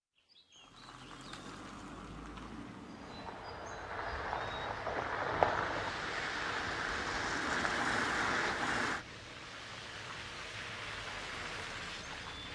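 Car driving toward the listener along a dirt track, its engine and tyre noise growing louder and then cutting off abruptly about nine seconds in, with a few bird chirps. A quieter, steady outdoor background with birds follows.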